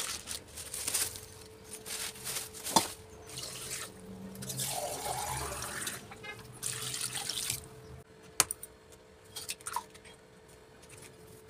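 Water poured and splashing into a plastic bowl of raw meat pieces, in two spells of a few seconds each, with a couple of sharp knocks in between.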